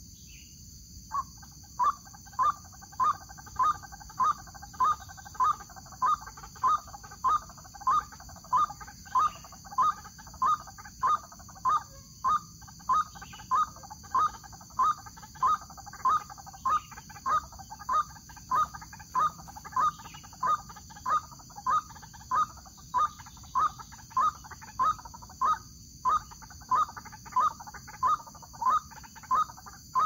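White-breasted waterhen (ruak-ruak) calling, a short rising note repeated over and over at an even rhythm of about two a second, with brief pauses.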